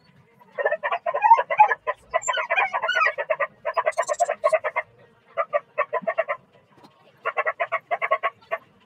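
An animal calling in five runs of rapid repeated notes, about nine a second, each run about a second long with short gaps between.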